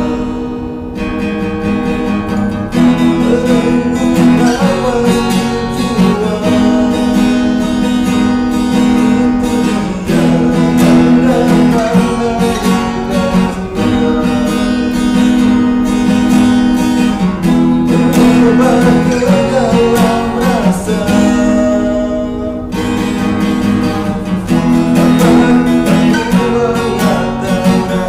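Acoustic guitar strummed in chords that change every couple of seconds, with a man singing along.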